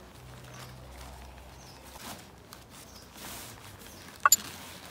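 A Quechua Arpenaz 4.1 Fresh&Black tent and its carry bag being handled as the packed tent is pulled out, with soft rustling. Two sharp clicks close together a little past four seconds in are the loudest sound.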